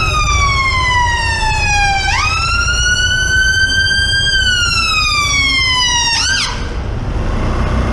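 Ambulance siren in wail mode, its pitch sweeping slowly down and back up, then switching to a few quick yelps about six seconds in before cutting off suddenly. A low traffic rumble continues underneath.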